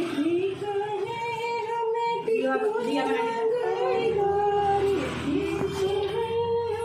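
A woman singing a devotional song at a puja, drawing out long, wavering held notes with no words picked out between them.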